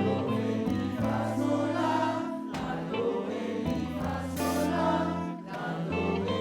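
Music: a group of voices singing together over sustained instrumental notes, with a bass line that changes every second or two.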